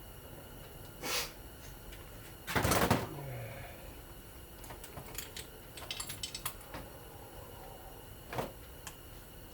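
Scattered knocks and clicks of ceiling fan parts being handled during a teardown, with one louder clatter about two and a half seconds in and a run of small ticks a few seconds later.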